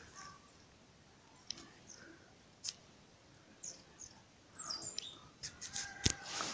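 Small birds chirping faintly and sporadically, in short high calls with one falling call, and a sharp click near the end.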